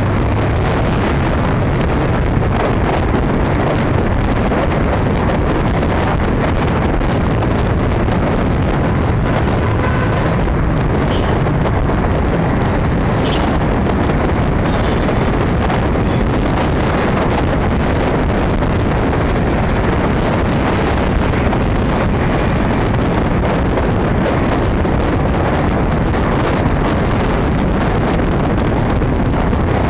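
Steady wind buffeting on the microphone of a camera riding along a city road, over the rumble of engines and traffic.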